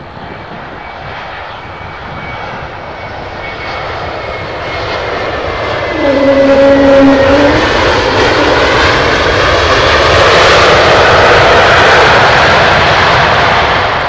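Airbus A321 airliner's jet engines during touchdown and landing rollout, growing louder. About six seconds in the sound jumps with a brief two-note whine, then stays a loud, even roar until it falls away sharply near the end.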